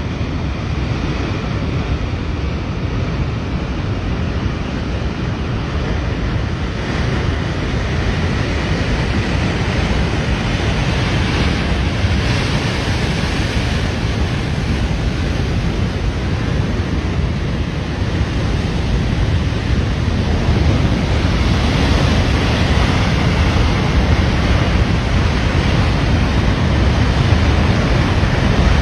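Floodwater rushing down a swollen mountain stream: a loud, steady rush of noise that grows slightly louder toward the end.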